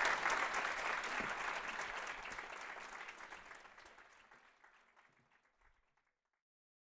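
Audience applauding, a dense patter of many hands clapping that fades out over the first six seconds or so.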